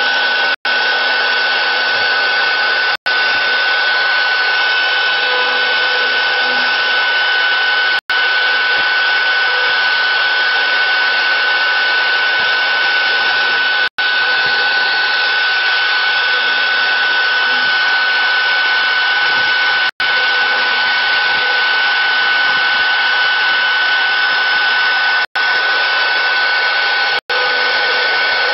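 CNC router spindle running with a steady high whine while its bit mills a groove into a wooden block. The sound cuts out for an instant several times.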